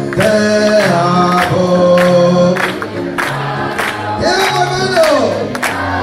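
Church congregation singing a Spanish-language worship song with instrumental accompaniment, clapping along about twice a second.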